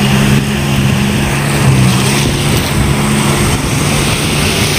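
Jet ski engine running steadily as it tows a banana boat, with the wash of small breaking waves around it.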